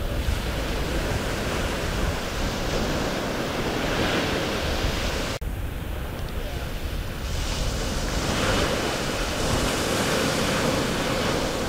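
Ocean surf washing onto a sand beach, swelling a few times, with wind buffeting the microphone.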